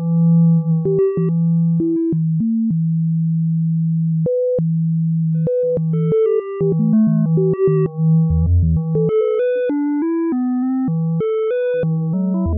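Software synthesizer sine tones generated from the colour values of an image's pixels: several plain electronic tones sounding together, each holding a pitch and then jumping abruptly to another. A low tone holds for long stretches, while the higher notes change faster and more often in the second half.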